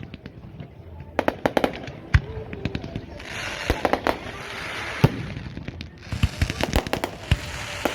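Aerial fireworks going off: a rapid, uneven series of sharp bangs, some in quick clusters, with two stretches of dense hissing crackle, one in the middle and one near the end.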